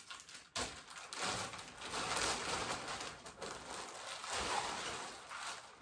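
Clear plastic packaging bag crinkling and rustling as it is handled and pulled open. The noise is irregular and starts about half a second in.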